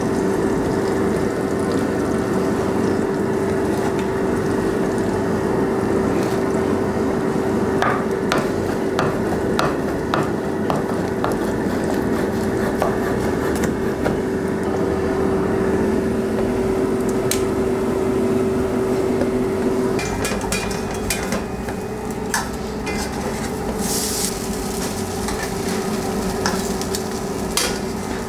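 A kitchen knife slicing seared steak on a wooden cutting board, with scattered taps of the blade and tongs against the board. Underneath are a steady frying sizzle and a constant hum.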